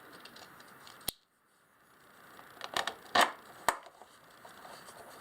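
Sharp hard-plastic clicks and knocks of a motorcycle battery being worked and pushed into a tight battery compartment. One click comes about a second in, then three knocks near the middle, the second one loudest.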